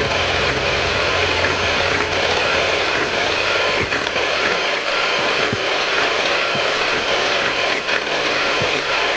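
Electric hand mixer running steadily at a constant speed, its twin beaters whipping cream and condensed milk in a glass bowl.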